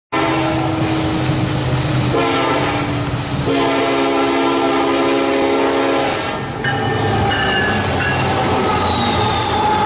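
Air horn of an EMD SD70ACe diesel locomotive sounding a chord in long blasts as it approaches, changing notes about two and three and a half seconds in and stopping about six seconds in. The locomotive then passes close by with its diesel engine running and its wheels rolling on the rails.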